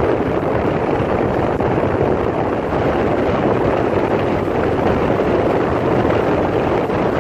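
Steady rush of road and wind noise from a vehicle moving along a country road, with wind buffeting the microphone.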